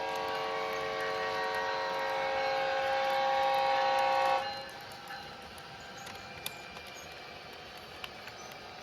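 Recorded Nathan M5 train horn played through an HO-scale model locomotive's sound decoder, holding one long chord that grows a little louder, then cutting off suddenly about four and a half seconds in. A couple of faint clicks follow.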